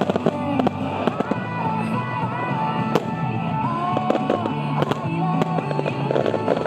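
Star mine fireworks bursting and crackling over music with a melody and a stepping bass line, with sharp bangs about three and five seconds in.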